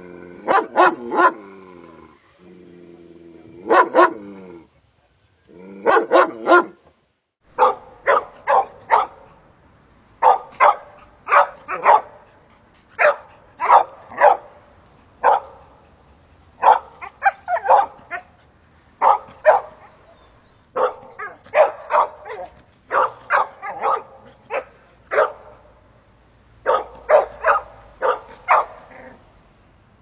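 A dog barking over and over in quick runs of short barks. The first few seconds hold longer, drawn-out pitched calls.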